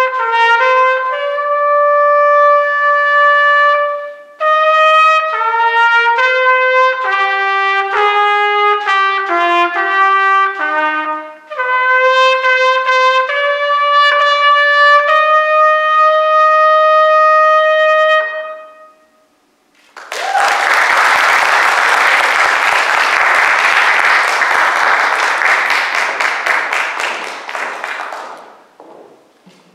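Solo trumpet playing the school's alma mater, a melody of clear separate notes ending on a long held note. After a short pause, applause for about eight seconds that dies away near the end.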